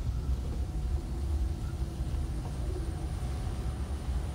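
Vehicle engine and road noise heard from inside the cabin while driving slowly on a gravel road: a steady low rumble with a faint engine hum.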